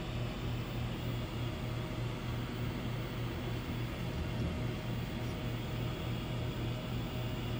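Steady low electrical hum with a hiss from the powered-up 1976 Zenith Chromacolor II console TV chassis, which is running without high voltage.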